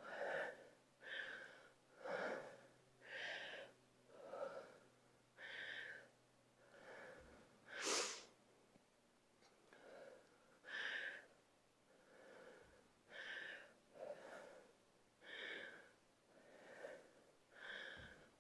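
A woman breathing hard from exertion: faint, rhythmic breaths about one a second, with one sharper, louder exhale about eight seconds in.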